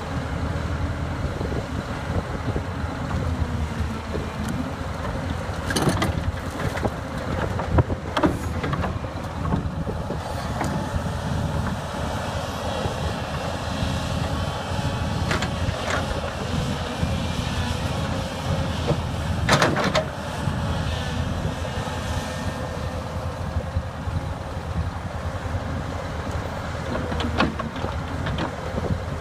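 Case 904B hydraulic excavator running steadily while digging and loading, its engine and hydraulics working, with a faint steady whine. Several sharp clanks and knocks come through as the bucket works through broken concrete and rubble, the loudest around the middle.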